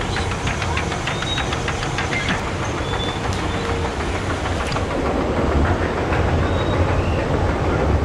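Whitewater rapids rushing and churning around a round river raft: a loud, steady rush of water, with a low rumble that grows louder about halfway through.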